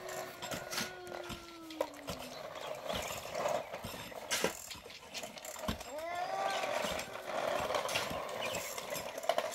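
Shovel and pick work in stony soil: irregular knocks and scrapes, under drawn-out calls. One call is held steady and sags at its end about two seconds in; another rises and falls about six seconds in.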